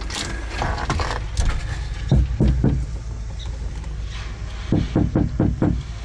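Two bouts of quick knocking on a door, a few raps each, about a second apart in their groups of four or five, over a steady low rumble.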